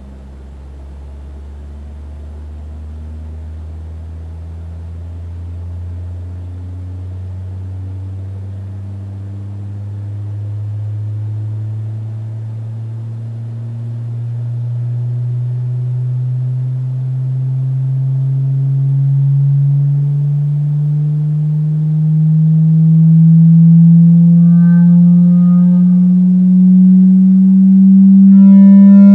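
Loudspeaker fed a steady tone from a function generator, sweeping slowly upward from a low hum to a higher one and growing steadily louder as it drives a soap film into its vibration patterns. About three quarters through, and again at the end, the tone picks up a brief buzzy edge.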